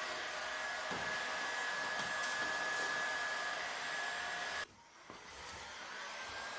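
Electric hot air gun running, its fan blowing air with a thin steady whine while it heats old paint on a car roof. The sound cuts out abruptly about two-thirds of the way through and comes back fainter.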